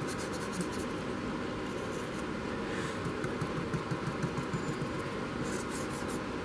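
A stiff brush scrubbing weathering powder onto the roof of an HO scale plastic model locomotive, in several short bursts of quick strokes, over a steady background hum.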